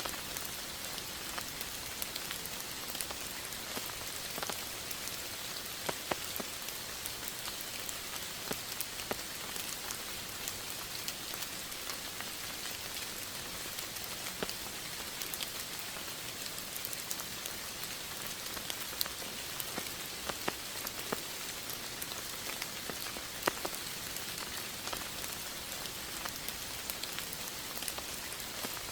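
Steady rain falling, a continuous hiss with many individual drops pattering and ticking on surfaces.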